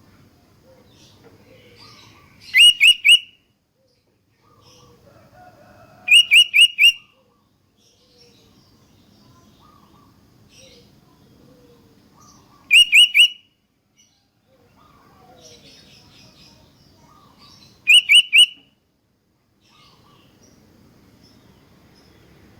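Sooty-headed bulbul (kutilang) calling: four loud bursts of three or four quick, clear notes, several seconds apart, over faint background chirping and a low hum.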